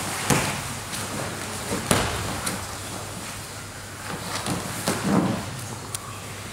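Jiu-jitsu grapplers in gis scuffling on the mat: fabric rustling and bodies shifting, with several sharp slaps and a few dull thumps.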